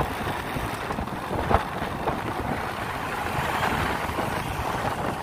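Wind rushing over the microphone of a moving motor scooter, with the scooter's engine and road traffic running underneath. A brief thump about one and a half seconds in.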